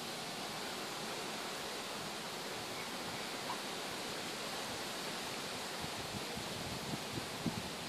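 Steady background hiss of open-air ambience with no barking, and a few faint low bumps near the end.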